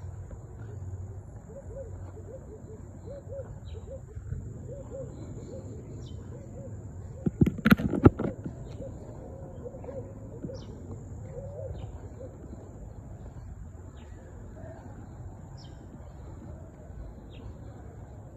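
Outdoor evening ambience: a steady high-pitched insect trill with scattered short bird chirps and calls. A brief burst of loud sharp knocks comes a little before halfway.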